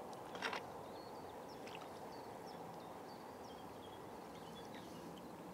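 Faint outdoor background with a short water splash about half a second in as a landing net is lowered into the water to release a carp, then small birds chirping faintly.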